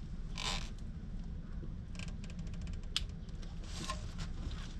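Handling noises from gloved hands and sleeves working around the engine's plastic cooling fan: brief rustles, a run of small clicks about two seconds in and one sharp tick about three seconds in, over a low steady rumble.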